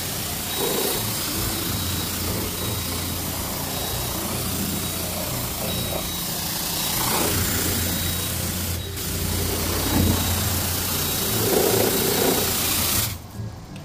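High-pressure car-wash spray wand hissing as it jets water onto a car, over a steady low hum; the sound drops off abruptly near the end.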